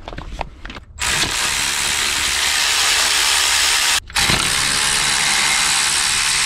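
Cordless power tool spinning a socket on an alternator mounting bolt, run in two bursts: about three seconds, a short stop, then running again. It is loosening the bolts to take the alternator off the engine.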